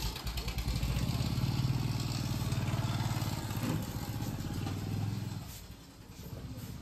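Motorcycle engine running close by, then fading away about five and a half seconds in.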